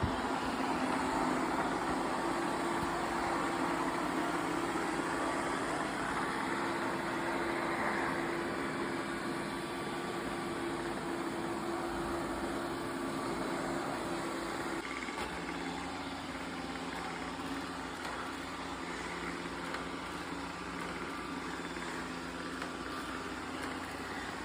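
Roborock S8 MaxV Ultra robot vacuum running: a steady motor hum with a whirring fan and brushes, its tone shifting about fifteen seconds in.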